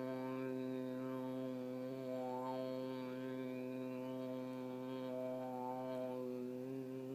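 A low, steady sung drone held on one pitch, with its upper overtones slowly shifting as the vowel changes: a woman's voice toning or chanting for sound healing.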